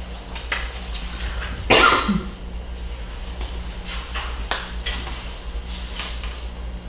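A person coughs once, about two seconds in, the loudest sound here. Around it come short rustles of paper pages being handled, over a steady low hum.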